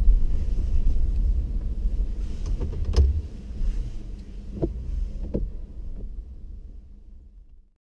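Inside the cab of a 2015 Ford F-150 with the 5.0 V8 while driving: a steady low rumble of engine and road, with a few light knocks, the strongest about three seconds in. The sound fades away toward the end.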